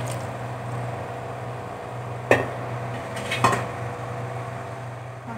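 Cold water pouring onto freshly drained pasta in a steel colander, a steady splashing rush over a low hum, with two short metallic clinks a little past the middle.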